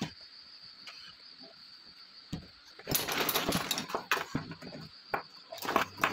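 Crickets chirring steadily. Over them come bursts of rustling, scraping and knocking from hands handling things on a bench, about three seconds in and again near the end.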